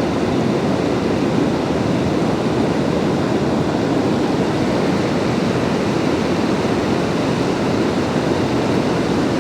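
Steady rushing of river water running through nearby rapids, an even roar with no breaks.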